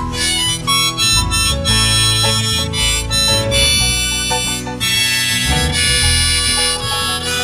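Harmonica playing an instrumental solo over acoustic guitar accompaniment, a break between the sung choruses of a folk song.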